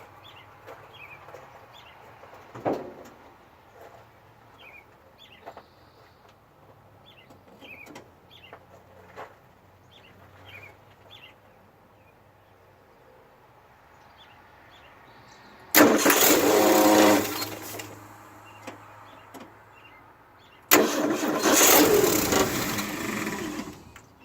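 The starter of a 1968 Ford F100 engaged twice, each time a loud mechanical run that stops without the engine catching: a short one about two-thirds of the way in and a longer one of about three seconds near the end. The truck won't start, and the owner hears a weird sound and vibration from the starter area.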